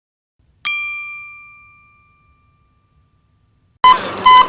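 A single bell-like ding rings out and fades over about a second and a half. Near the end, louder repeated electronic beeps start at about two a second over a steady hiss.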